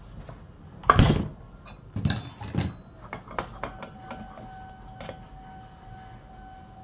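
Steel tools on a Stihl 440 chainsaw's magnesium flywheel: a sharp metallic strike about a second in as the spanner breaks the flywheel nut loose. A few ringing clinks and lighter clicks follow as the nut, spanner and flywheel are handled.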